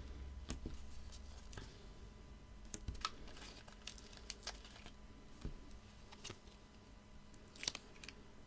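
Card and paper being handled at a craft table: faint scattered rustles and small clicks, with a few sharper taps about three seconds in and near the end.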